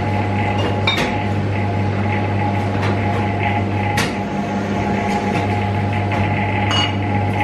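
Milk vending machine humming steadily, with three sharp knocks of a glass bottle being handled in its dispenser compartment.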